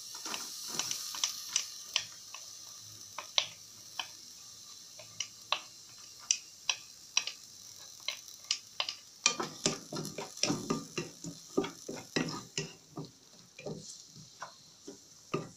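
Chopped onion sizzling as it drops into hot oil in a pan, with a wooden spatula tapping and scraping the onion off a plate into the pan. From about nine seconds in come quicker, louder knocks as the spatula stirs the onion around the pan.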